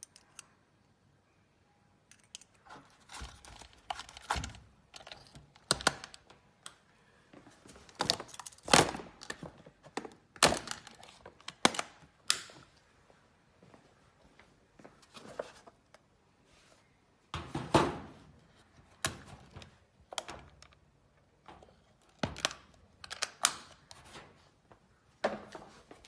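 Irregular knocks and thunks of objects being handled, picked up and set down, starting about two seconds in, some of them loud and sharp.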